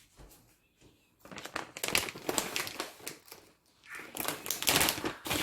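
Plastic packaging of cheddar cheese crinkling as it is opened and handled: two spells of rustling, starting about a second in and again near the end.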